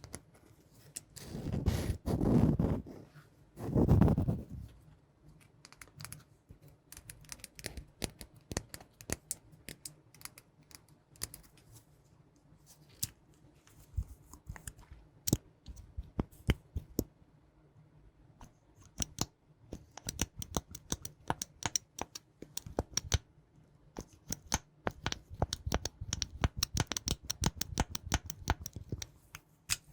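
Close-miked ASMR trigger sounds: scattered clicks and taps throughout, thickening into a fast run of crisp tapping or scratching in the second half. Two loud, low muffled swells come a couple of seconds in.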